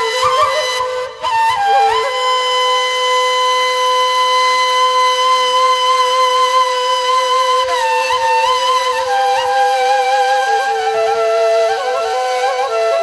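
Solo ney, the Turkish end-blown reed flute, playing a slow, ornamented melody: a brief breath about a second in, then one long held note for several seconds that steps down to lower notes, with quick turns near the end.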